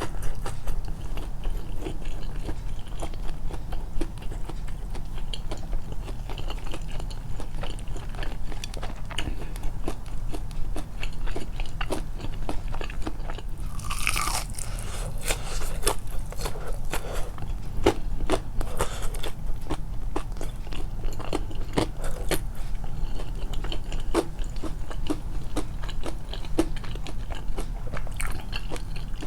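Close-miked biting and chewing of hot homemade karaage-style fried chicken, with many small crunches and clicks from a coating that is only lightly crisp because it was under-fried. About halfway through there is a louder rush of noise lasting about a second, over a steady low hum.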